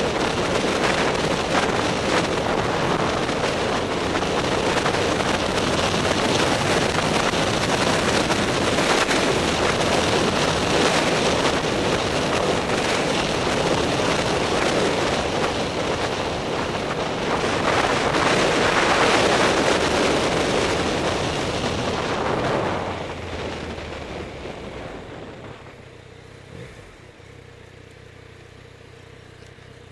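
Heavy wind noise on a helmet camera's microphone while riding a Yamaha MT-09, with the engine running underneath. Near the end the wind dies away over a few seconds as the bike slows to a stop, leaving the MT-09's three-cylinder engine idling steadily.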